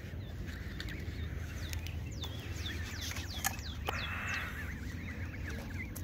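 A brood of goslings peeping: a run of short, high calls that each slide downward, with a brief rustle about four seconds in and denser calling near the end.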